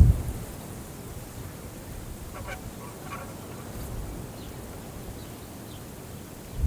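Wind across prairie grass, gusting briefly at the start and again at the end, with two short harsh pitched sounds about two and a half and three seconds in and a few faint high bird chirps after them.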